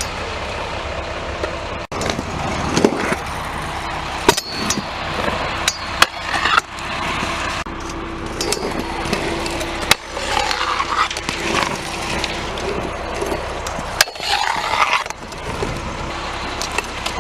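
Pro scooter wheels rolling over a concrete skate park, with several sharp clacks from landings and deck strikes.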